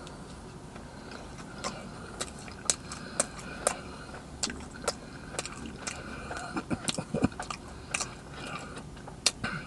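Close-miked eating: chewing a Krispy Kreme Twix doughnut, with irregular wet mouth clicks and lip smacks.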